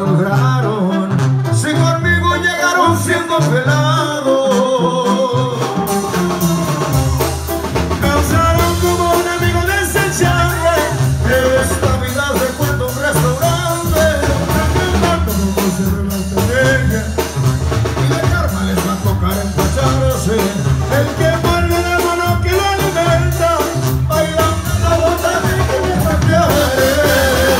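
Live banda music: tubas playing a stepping bass line under trombones and other horns, with drums; the low end fills out about seven seconds in.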